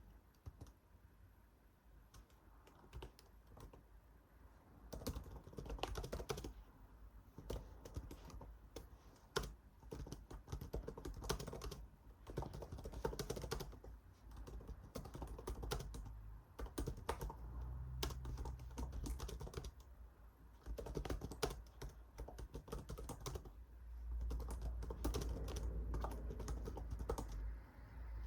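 Typing on a computer keyboard in uneven bursts of key clicks with short pauses between them.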